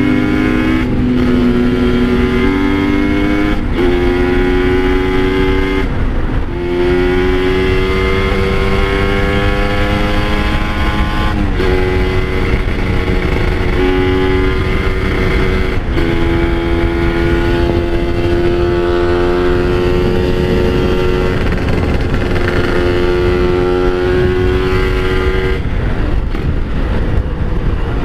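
Kawasaki Ninja 150RR's single-cylinder two-stroke engine pulling hard, its pitch climbing in each gear and dropping sharply at each of about five upshifts. It then holds a steady pitch for several seconds and eases off near the end.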